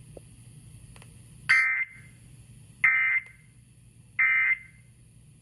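Three short, identical bursts of harsh digital data tones, evenly spaced a little over a second apart: the SAME end-of-message code that closes a NOAA Weather Radio emergency alert.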